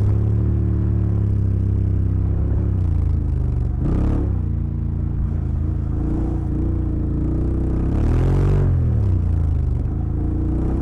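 Honda X-ADV 750's parallel-twin engine running under way at steady low revs. The revs rise and fall briefly about four seconds in, and again about eight seconds in.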